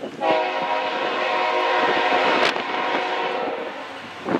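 Diesel locomotive's multi-chime air horn sounding one long blast, a steady chord of several tones lasting about three and a half seconds.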